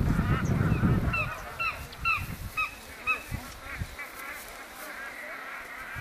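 Northern rockhopper penguins calling: a run of short honking calls, about two a second, then fainter calls. A low rumbling noise fills the first second.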